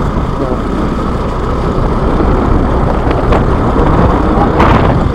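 Small motorcycle engine running while riding over a rough dirt forest track, with a loud steady rumble and wind noise on the microphone.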